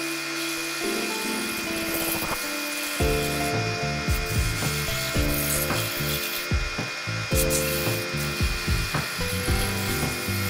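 Background music with a steady beat, over a wood lathe running and a cloth rubbing oil onto the spinning wooden lid.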